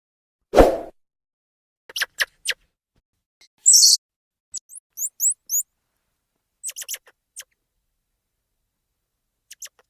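Animal calls from a sound-effects recording: a short, loud, deep burst about half a second in, then several groups of short, high, bird-like chirps and calls separated by silence, including a run of quick downward chirps in the middle.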